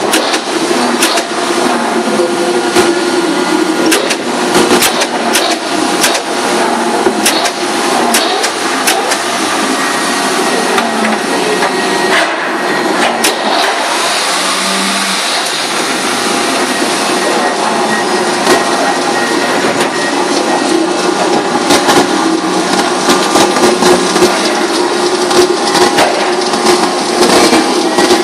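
Paper-trimming machinery running steadily, with frequent sharp clacks and knocks as stacks of paper are slid and handled on the cutter's air table.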